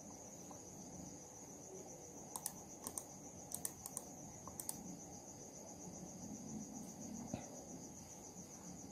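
Computer mouse buttons clicking, several quick pairs like double-clicks between about two and five seconds in, over a faint steady high-pitched pulsing chirp of crickets.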